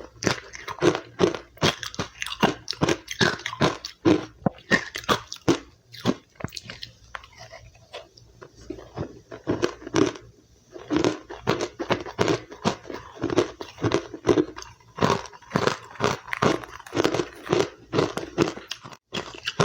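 Close-up biting and chewing of powdery ice: quick, dense crunches, thinning out for a few seconds midway before picking up again.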